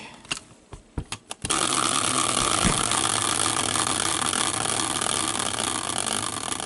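A few clicks, then a prize wheel spinning: its clicker ticks against the pegs in a fast, even rattle that starts suddenly and slows to spaced-out ticks near the end as the wheel comes to rest.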